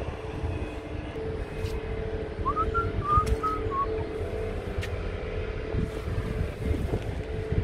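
Wind rumbling on the microphone, with a steady droning hum underneath. About two and a half seconds in there is a short, high, warbling chirp lasting a little over a second.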